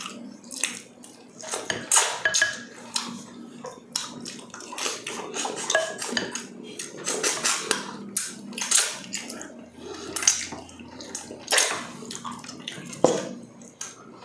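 Close-miked mukbang eating: irregular wet chewing and mouth sounds on soft, gelatinous stewed balbacua meat and skin, with a spoon now and then clinking against a dish.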